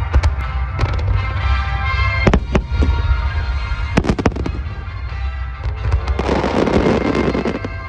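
Fireworks going off in quick succession, with sharp bangs over a continuous deep booming rumble, while music plays along. Near the end there is a stretch of dense hissing noise.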